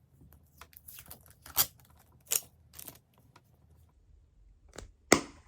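Packaging being torn open and handled by hand: irregular crinkling and tearing rustles with scattered clicks, and one sharper, louder click near the end.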